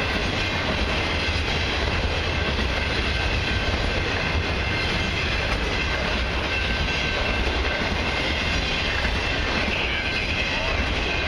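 Autorack freight cars of a long train rolling past: a steady rumble of steel wheels on rail.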